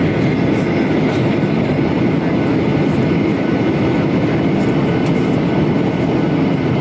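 Steady noise of a Boeing 737-900ER in flight, heard from inside the cabin: a dense, even low rumble of engine and airflow noise with faint steady high tones above it.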